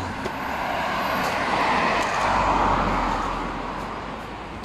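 A motor vehicle passing close by on the road. Its tyre and engine noise rises, peaks in the middle with a low rumble, and fades away.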